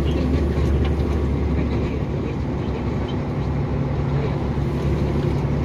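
KAMAZ truck's diesel engine running steadily under light throttle, heard from inside the cab as a low, even drone, while the truck drives on an icy road.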